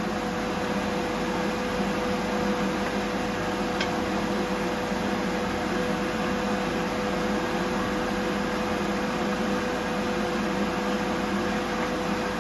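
Steady whir of a fan, with a constant mid-pitched hum that does not change.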